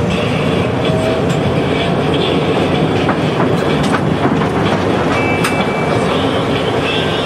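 Tram running along its track, heard from inside the cab: a steady rumble of wheels and running gear with irregular sharp clicks as the wheels cross rail joints, and a brief thin high whine about five seconds in.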